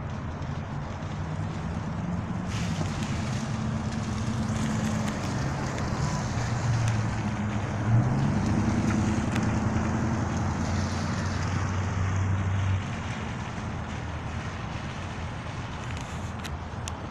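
A low, wavering drone of several deep pitches, with a noisy hiss over it, that grows louder and then cuts off suddenly about thirteen seconds in.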